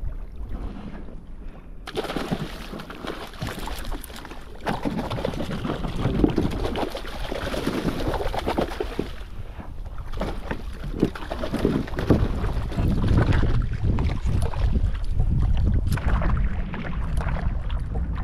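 Water splashing and sloshing against a fishing kayak's hull, with wind rumbling on the microphone. The splashing grows louder about two seconds in.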